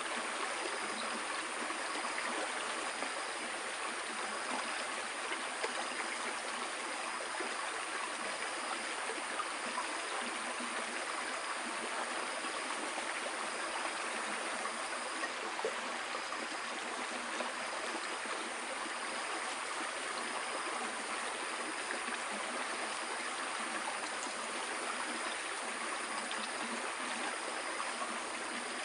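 Steady rushing of running water, with a faint high chirp repeating about once a second over it.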